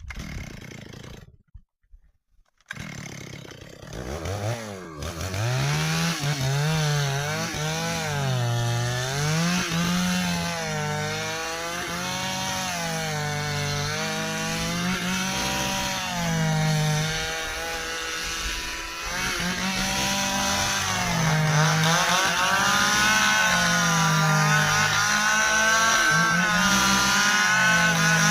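Two-stroke Stihl chainsaw cutting through a dry ipê hardwood log, coming in about three seconds in. Its engine pitch rises and falls over and over as the chain bites into the dense wood and bogs, then frees up again.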